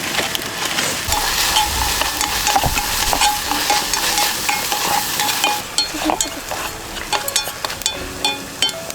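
A steady hiss with scraping for about five seconds, then a quick run of light clinks and taps, some ringing briefly.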